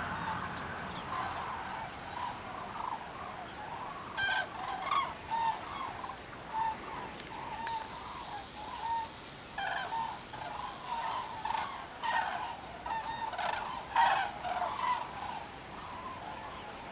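A migrating flock of common cranes calling in flight: many short, overlapping calls, repeated again and again, some loud and some fainter, with the loudest about two-thirds of the way through.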